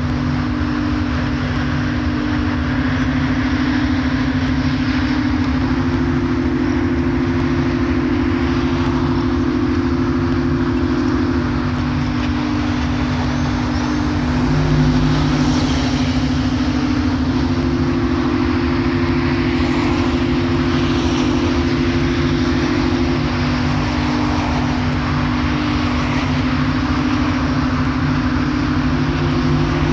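Ambient soundscape: a steady noise bed like city traffic under a low drone of held tones, which shift to new pitches every few seconds.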